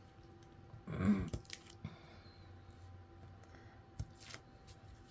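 Quiet handling of paper card pieces on a craft desk: a brief rustle about a second in and a couple of light clicks near four seconds.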